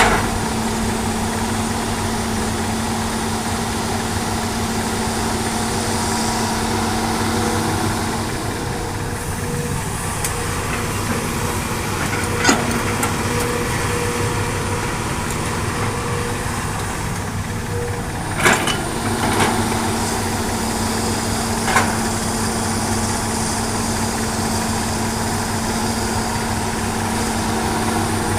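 Heavy diesel engine of a hydraulic excavator running steadily with a constant hum while it works, with a few sharp metallic knocks scattered through the middle.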